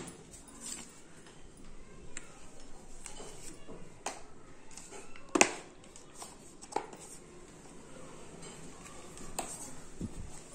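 Hands handling a smartphone and its cardboard box and inner tray: scattered light taps, clicks and rustles, with one sharp knock about five seconds in.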